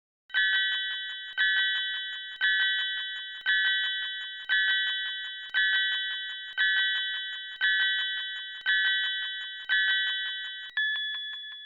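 Countdown timer sound effect: a bright electronic chime of several steady high tones with fast ticks inside it, struck once a second ten times, each fading away. About a second before the end it gives way to a single plainer, longer tone marking zero.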